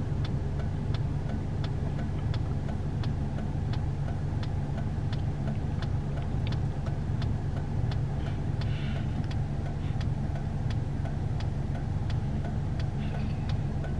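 A car idling with a steady low hum while the hazard-light flasher ticks evenly over and over.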